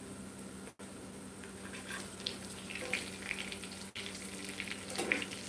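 Hot water cornbread patties frying in oil in a cast-iron skillet: a steady sizzle with crackling and small pops that pick up about two seconds in as the patties are turned with a spatula and fork.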